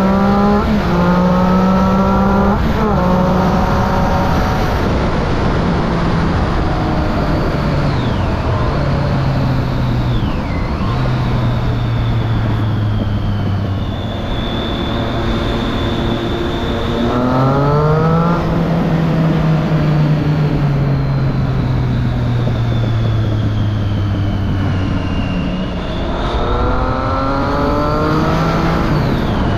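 Triumph Street Triple 675's inline three-cylinder engine through a Remus Hypercone exhaust with dB killer fitted. It accelerates through quick upshifts in the first few seconds, then the revs ease slowly down for a long stretch, rise again about halfway through, and climb through another run of upshifts near the end.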